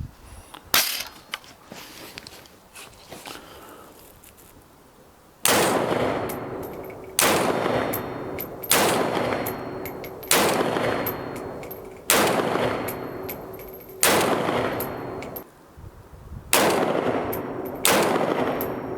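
Bear Creek Arsenal AR-15 in 7.62x39 fired semi-automatically. One shot comes about a second in, and after a pause eight more follow at a slow, steady pace, roughly one every one and a half to two seconds, each with a long echo.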